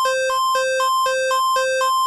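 Electronic emergency alert tone repeating a hi-lo two-pitch beep, the two notes about an octave apart, at about two low-high cycles a second.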